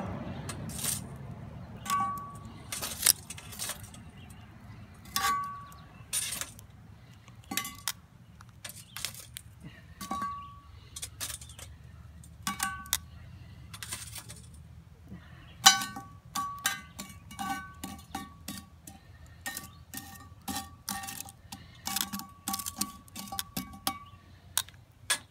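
Charcoal briquettes being set one after another on the cast iron lid of a Lodge 12-inch Dutch oven. Each lands with a sharp clink, and many leave a short metallic ring. The clinks come more often in the second half.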